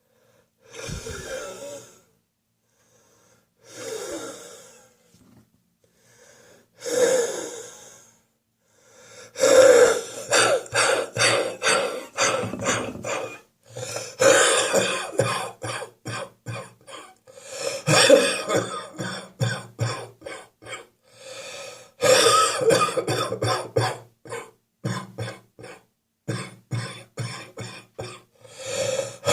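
A person with a chest cold coughing a wet, wheezy, chesty cough. It starts as three single spaced bouts, then from about nine seconds in turns into long fits of rapid coughs, several a second, with short gaps for breath between fits.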